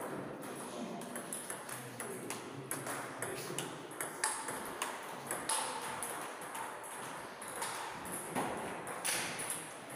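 Scattered, irregular clicks of table tennis balls striking bats and tables in a large hall.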